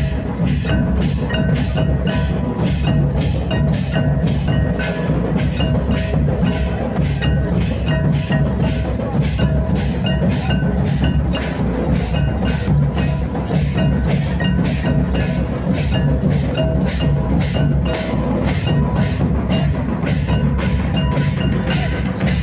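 Santal folk drumming for a Baha dance: double-headed madal (tumdak') hand drums and a large tamak' kettle drum playing a steady, driving beat of about two strokes a second, with a bright ringing tone repeating over it.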